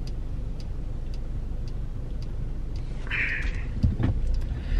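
Steady low rumble of a car's engine and cabin, with faint regular ticks about twice a second. A short breathy exhale comes a little past three seconds in.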